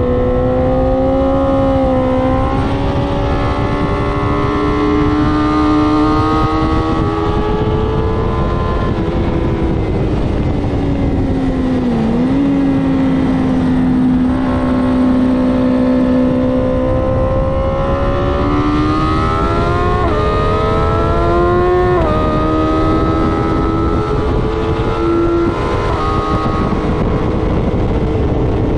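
BMW S1000RR inline-four engine at speed from onboard, its pitch climbing slowly under throttle, with quick upshifts about twenty and twenty-two seconds in where the pitch drops sharply. Steady wind rush on the microphone underneath.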